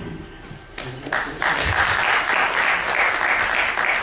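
Audience applauding. The clapping starts about a second in, runs dense and fades away near the end.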